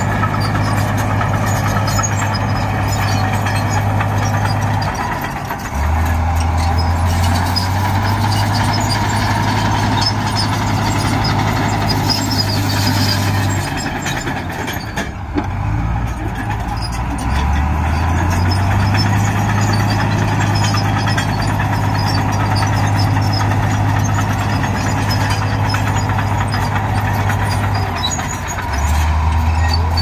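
Heavy diesel engine of earthmoving machinery running under load. Its deep steady note drops lower and climbs back three times, as the engine is loaded and eased.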